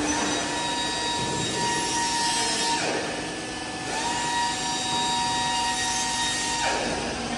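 Hydraulic test bench's electric motor and pump running with a steady whine while it drives a telescopic hydraulic cylinder. The whine cuts out about three seconds in and comes back a second later, and there are hissing swishes now and then.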